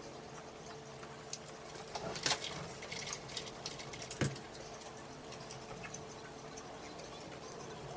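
Close-up eating sounds of chicken McNuggets being chewed, with small wet clicks and ticks, a flurry of them in the middle and two sharper clicks about two and four seconds in.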